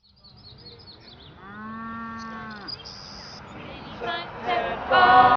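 Cattle mooing: one long moo about a second and a half in, then several louder moos near the end. A few short high chirps sound at the start.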